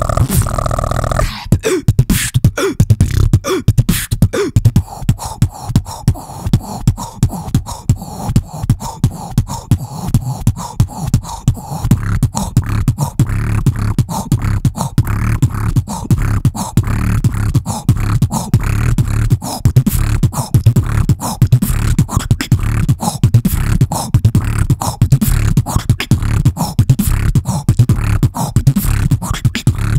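Vocal beatboxing into a handheld microphone in a trap style: deep, booming bass under fast, dense percussive clicks and hits. It opens with a held hummed tone that breaks off about a second in, and then the rapid beat runs on.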